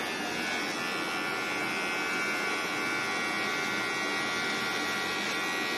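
Electric hair clippers running with a steady hum while shaving off eyebrows.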